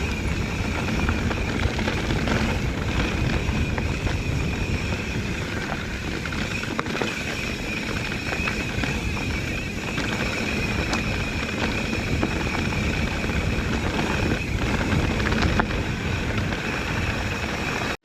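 Mountain bike riding along a dirt trail: steady rumble and rattle of tyres and bike over the ground, with a steady high-pitched hum over it.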